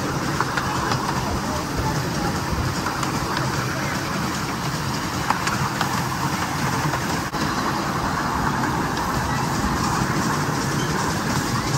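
Miniature ride-on railway train rolling steadily along the track, heard from aboard a passenger car, with a few sharp clicks from the wheels on the rails.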